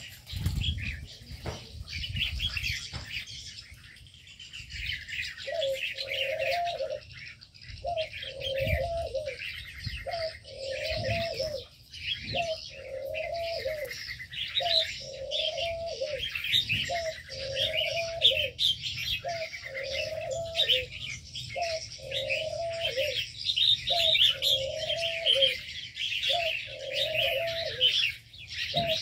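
Aviary birds chirping and twittering in a dense chorus, with a dove cooing over it in a steady series of short, arched coos about every second and a half. A few low thumps in the first few seconds.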